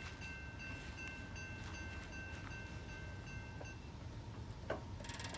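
Railroad crossing bell ringing about twice a second over a low rumble, then falling silent a little over halfway through. Near the end comes a single sharp knock, followed by a fast rattling clicking.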